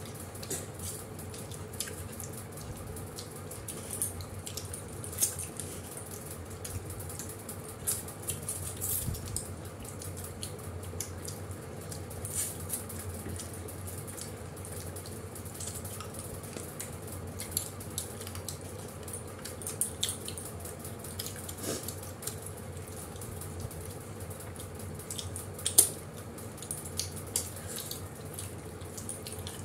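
People eating with their hands: chewing and wet mouth sounds, with scattered small clicks and taps of fingers and food on plates, and one sharper click near the end.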